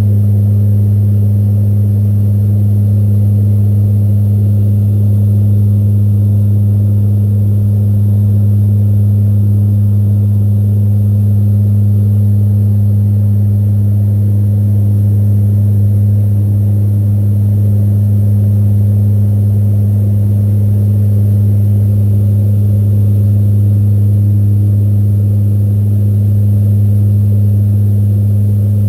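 Cabin drone of a C-130 Hercules in cruise, heard from inside the aircraft: its four turboprop engines and propellers make a loud, steady hum built on a strong deep tone with a second tone above it, unchanging throughout.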